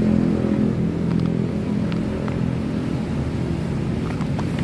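A motor vehicle engine running nearby: a steady low hum that eases off slightly after the first second, with a few faint small clicks over it.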